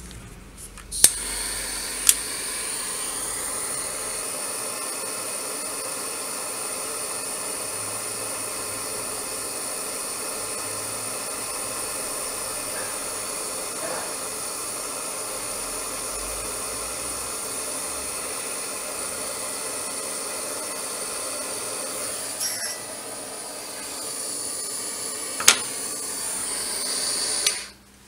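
Handheld butane torch burning with a steady hiss. It starts with a sharp click about a second in, gives two more clicks (one soon after, one near the end) and is shut off shortly before the end.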